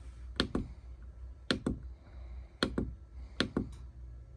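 Buttons on an RV wall thermostat being pressed to switch on the air conditioning: four presses about a second apart, each a quick double click, over a faint low hum.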